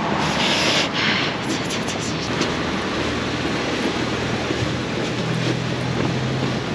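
A vehicle travelling on a wet road: a steady hiss of tyres and wind, with a low engine hum that comes up about three seconds in.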